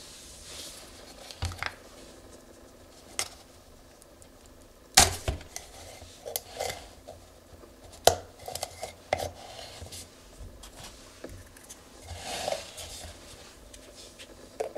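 Handling noise from a plastic engine-oil bottle and its screw cap as the cap is unscrewed: scattered clicks and knocks, the loudest about five seconds in and again about eight seconds in, with small scrapes and rustles between.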